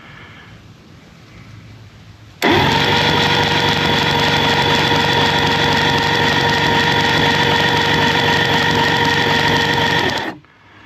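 Electric starter of a 1988 Evinrude 200 hp V6 outboard cranking the engine over steadily for about eight seconds, starting suddenly and cutting off, as a spark check. The check shows two cylinders without spark, which the mechanic puts down to bad ignition coils.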